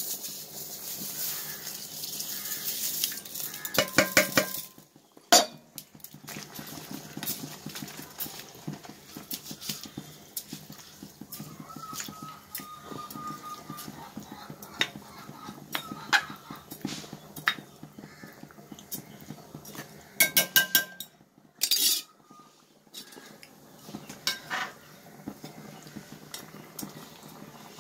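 Seeraga samba rice poured from a steel bowl into a pot of simmering chicken gravy, a hissing rush for the first few seconds, then a couple of metal clinks. After that a ladle stirs the rice in, clinking and scraping against the metal pot at intervals.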